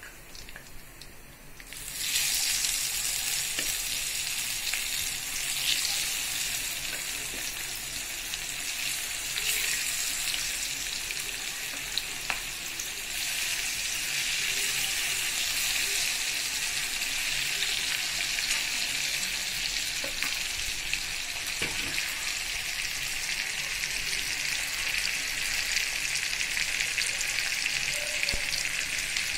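Masala-coated fish pieces shallow-frying in hot oil in a kadai. About two seconds in the sizzling jumps up suddenly as the fish goes into the oil, then runs steadily.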